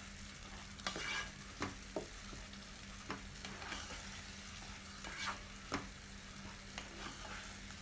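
Thick spinach and minced-chicken paste sizzling quietly in a non-stick pan while a spatula stirs it, with a steady hiss broken by about a dozen short, irregular scrapes and pops.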